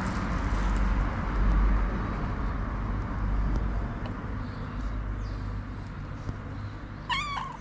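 Steady low outdoor rumble that slowly fades, then near the end a cat gives one short meow.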